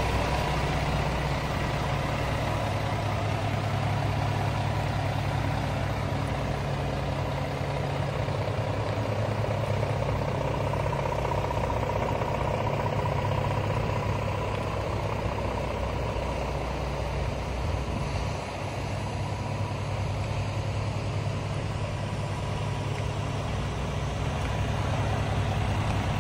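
Scania G450 truck's 13-litre six-cylinder diesel idling steadily with the tipper hydraulics engaged, a thin steady whine above the engine hum that fades about halfway through.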